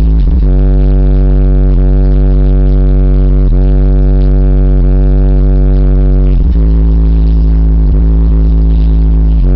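Loud bass-heavy electronic music played through two 12-inch Alpine Type R subwoofers driven by a Powerbass 1000.1 amplifier. A long held bass note sounds from about half a second in until about six seconds in, then the beat resumes.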